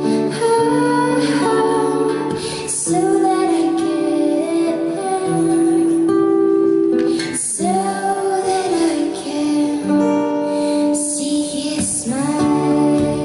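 A woman singing a slow song with long held notes, accompanied by her own acoustic guitar.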